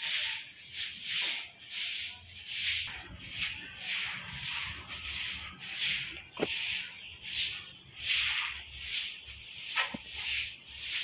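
Stiff broom sweeping water across a wet cement floor, a swishing stroke roughly every three-quarters of a second. Two sharp taps cut in, one a little past halfway and one near the end.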